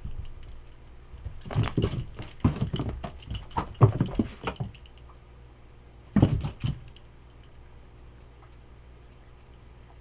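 A tabby cat's paws scampering and thudding on a carpeted floor in quick irregular runs, with another short flurry of thuds about six seconds in as it pounces at the wall.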